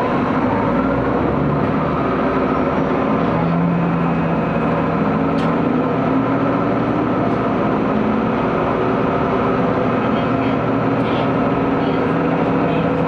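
AT500 diesel railcar running, heard from inside the passenger cabin: a steady engine drone with wheel and rail noise, its engine tone stepping up in pitch a few seconds in.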